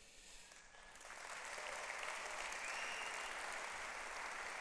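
Audience applauding, starting about a second in and building to a steady level.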